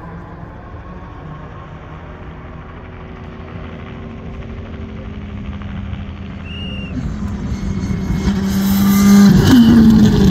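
Rally car's turbocharged four-cylinder engine, a Škoda Fabia Rally2, driven hard as it approaches from a distance and grows steadily louder until it passes close by. About nine seconds in the engine note dips briefly, then picks up again.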